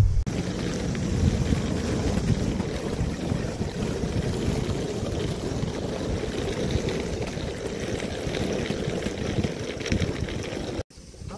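Wheels of a rolling suitcase running over an asphalt road, a steady gritty rumble that cuts off abruptly near the end.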